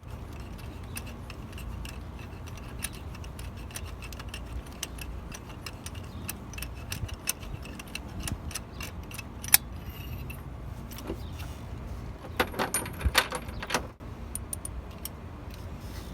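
Ratchet wrench with extension and socket clicking and clinking in irregular metallic clicks while a spark plug is worked on, with one sharp click about nine seconds in and a quick flurry of clicks near the end.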